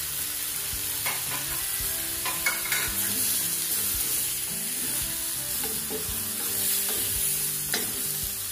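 Shrimp and sliced bilimbi sizzling in a hot pan while a wooden spatula stirs them. The spatula scrapes and knocks against the pan now and then, loudest about two and a half seconds in and again near the end.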